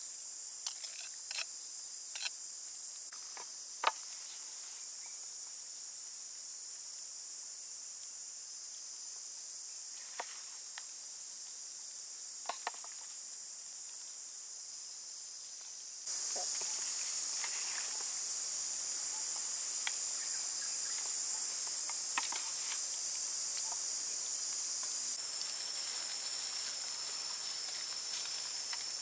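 Steady high-pitched chorus of insects, crickets or cicadas, with a few light clicks and taps; the chorus gets louder about halfway through.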